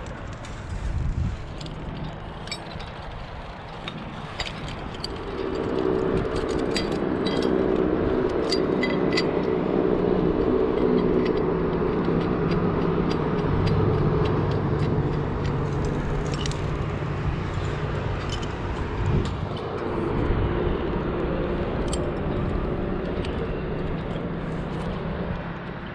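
An engine running steadily, setting in about five seconds in and easing off near the end, with scattered light metallic clinks and scrapes of carabiners and climbing gear.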